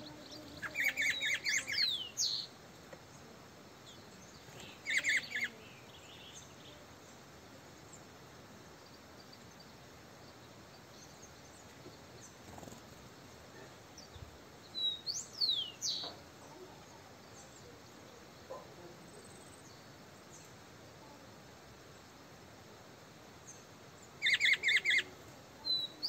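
Small birds calling in about four short bouts of rapid repeated chirps and quick high whistles that slide downward, with quiet gaps between them.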